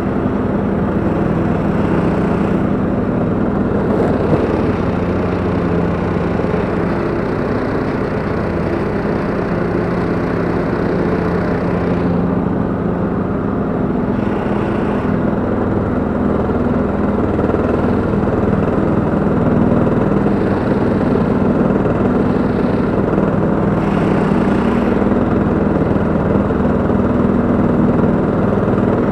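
Husqvarna LTH 174 lawn tractor's engine running at a steady pitch while mowing, together with the towed ATV flail mower cutting grass.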